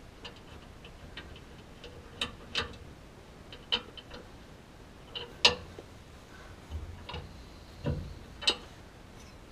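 Irregular light metallic clicks and taps of small bolts, washers and a StableLoad bracket being handled and fitted by hand against a truck's rear leaf spring. The loudest click comes about halfway through.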